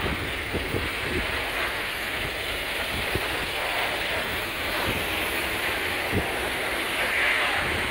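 MAN 26.291 tipper's diesel engine idling steadily, with wind buffeting the microphone.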